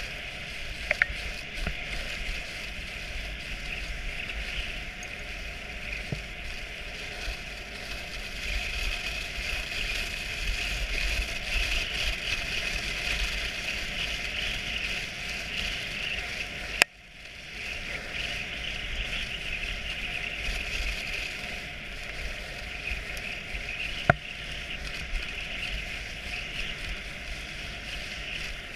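Dog sled runners hissing steadily over the snow as the team pulls, with a low wind rumble on the microphone. A few sharp clicks, and the sound briefly cuts out about two-thirds of the way through.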